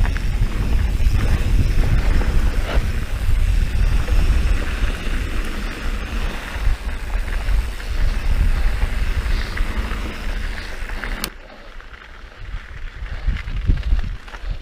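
Heavy wind noise on the microphone over the rattle and rolling of a mountain bike descending dirt singletrack. About eleven seconds in it breaks off with a sharp click to a much quieter stretch of slower riding with a few low bumps.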